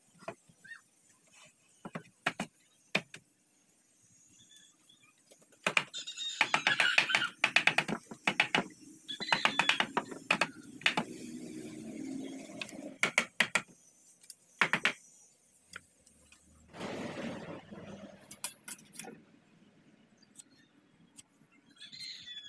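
Wooden boards knocking and clattering against each other and the bench as they are laid out and shifted into a frame, in a series of short knocks with a busier stretch in the middle.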